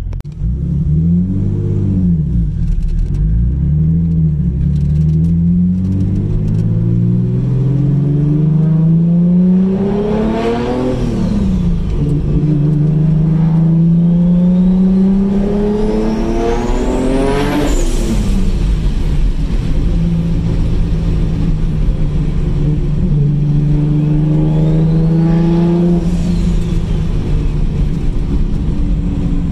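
The 3.0 L V6 of a single-turbo 1997 Mitsubishi 3000GT VR-4 accelerates through the gears, heard from inside the cabin with the window down. The revs climb steadily and drop sharply at gear changes about 11 and 18 seconds in, then dip again near the end. A high turbocharger whine rises along with the revs before the second shift.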